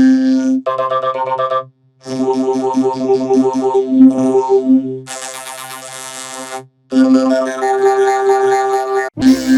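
Synthesizer music run through audio effects, in short chopped segments of held, pitched notes. It breaks off twice into brief silences, and turns into a hissy, noisy stretch a little past the middle.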